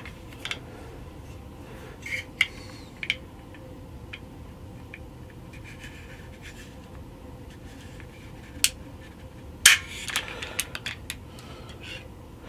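Double-action trigger of a Beretta 81 pistol being drawn through with a spring trigger-pull gauge: scattered light clicks and scrapes of the gauge rod on the trigger, with a sharper click about ten seconds in as the hammer drops, followed by a few small ticks.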